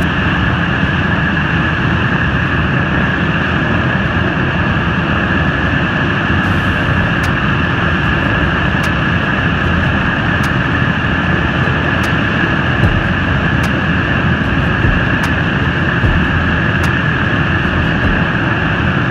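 Radial piston engines of a World War II B-24 Liberator and B-17 bomber running steadily on the ground, a loud, even drone.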